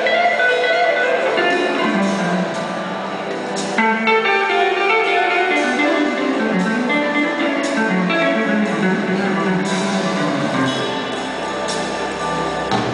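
Live band music led by a hollow-body archtop electric guitar playing slow, smooth-jazz melody lines over the band's backing.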